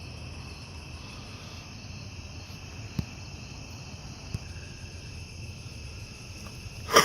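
Crickets chirring steadily in the background at night, with two sharp clicks about three and four seconds in.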